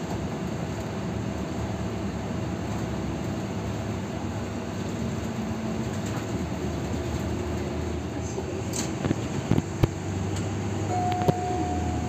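Inside a city bus running on a snow-covered street: a steady engine and road rumble. A few sharp knocks come about nine to ten seconds in, and a short one-tone beep follows near the end.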